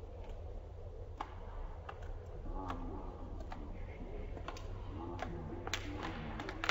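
Juggling rings clacking against the hands as ten rings are thrown and caught: sharp, irregular clicks over a steady low hum.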